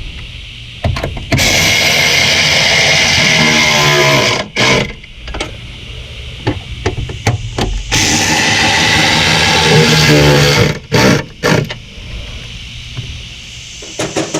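Music playing from the Buick Encore's car stereo through the car speakers, showing the sound restored by the new amplifier. It comes in loud stretches with quieter, choppier gaps and short clicks between them.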